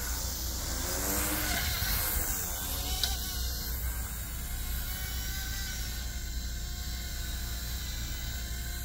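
Small electric RC helicopter's motor and rotor whining in flight, its pitch wavering up and down with the throttle. A light click about three seconds in.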